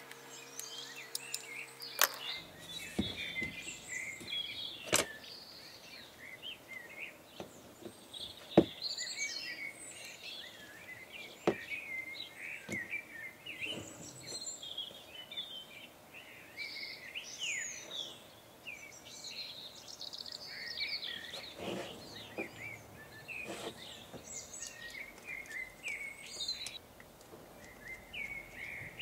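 Small birds chirping and singing continuously, with a few sharp clicks and knocks from small metal engine parts being handled and fitted at the bench, the loudest about eight and a half seconds in.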